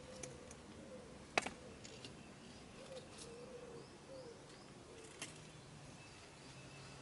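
Faint birds calling: low, repeated curved hoots and small high chirps. A few sharp taps or clicks come through, one louder about a second and a half in.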